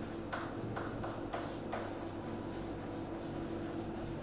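Chalk scratching on a chalkboard as a word is written, in about four short strokes in the first two seconds, over a steady low hum.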